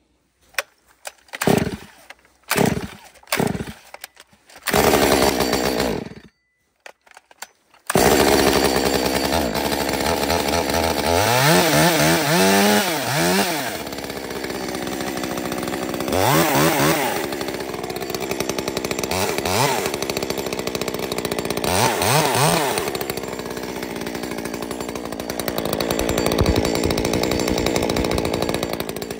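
Stihl MS 201T top-handle two-stroke chainsaw being pull-started: several short pulls of the starter cord and a brief sputter in the first six seconds, then it catches about eight seconds in and keeps running, revved up and back down several times.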